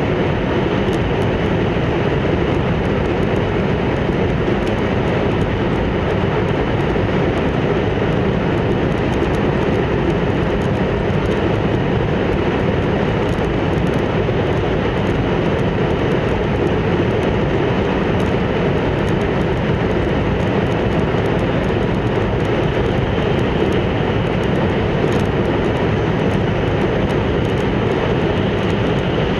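Hayabusa Shinkansen train running at speed, a steady, unbroken rumble of running noise heard from inside the passenger car.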